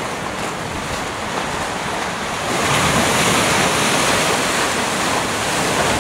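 Lake waves washing and breaking against shoreline rocks, with wind buffeting the microphone. The surf gets louder about two and a half seconds in.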